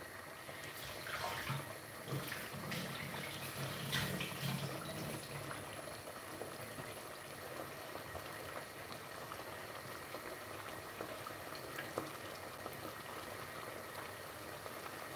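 Tomato sauce simmering in a pot: a soft, steady bubbling with scattered small pops.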